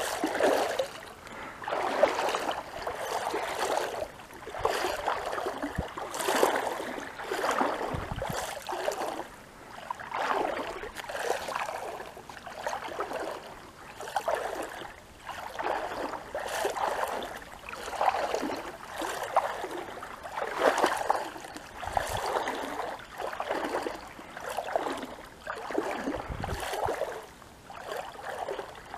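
Paddle strokes through river water: a swish that swells and fades about every one and a half to two seconds, with the water trickling between strokes.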